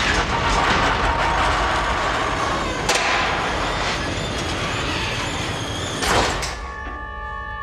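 Heavy sliding door: a long, loud rushing grind starting suddenly, with a sharp click about three seconds in and a louder clunk about six seconds in.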